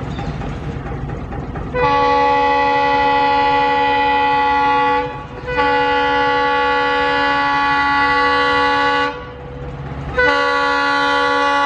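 WDP4D diesel locomotive sounding its multi-tone air horn in three long blasts of about three to four seconds each, the last starting near the end and running on. Before the first blast there is the low rumble of the approaching train.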